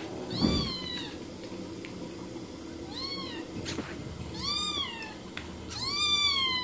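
Kitten meowing four times, each call rising and then falling in pitch, the last one the longest and loudest. A short low thump comes with the first meow.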